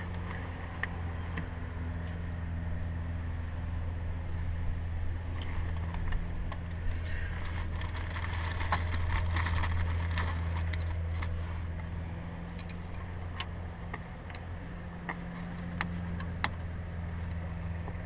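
Scattered light metallic clicks and scrapes of a fuel injector clamp and its bolt being worked into place by hand, busiest about halfway through, over a steady low hum.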